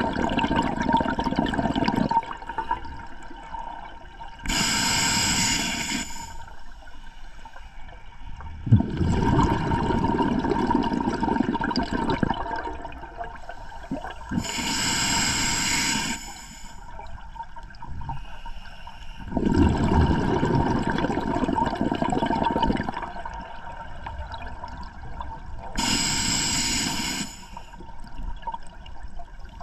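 A scuba diver breathing slowly underwater, three full breaths: each inhale is a short hiss from the regulator, and each exhale is a few seconds of bubbling as the air vents into the water.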